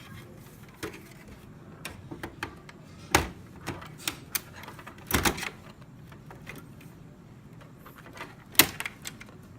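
Irregular clicks and knocks of a computer power supply being handled and fitted back into a Dell OptiPlex GX270 case, with the loudest knocks about three, five and eight and a half seconds in.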